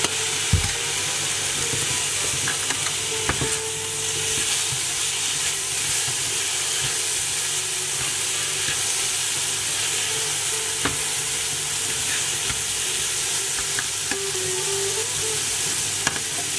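Chopped tomatoes, onion, capsicum and carrot sizzling steadily as they fry in a little oil in a frying pan, stirred with a nylon slotted spatula. A few short knocks of the spatula against the pan.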